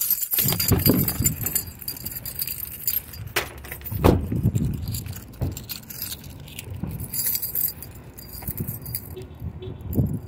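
Keys jangling in the hand of a person walking, with scattered clicks and low bumps, and a sharp knock about four seconds in.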